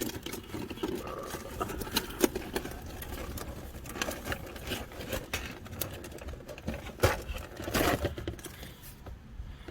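Cardboard toy box being opened and its contents handled: irregular scrapes, taps and crinkles of cardboard and plastic, with a louder scrape and rustle about seven to eight seconds in.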